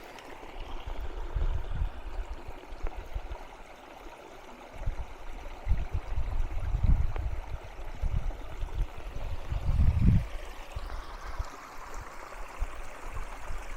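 Shallow creek water flowing over stones, a steady rushing babble, with irregular low rumbles now and then, strongest about seven and ten seconds in.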